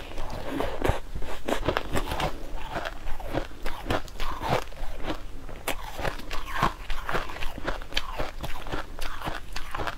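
A person biting and chewing chunks of granular frozen ice, a dense, irregular run of crisp crunches, several a second.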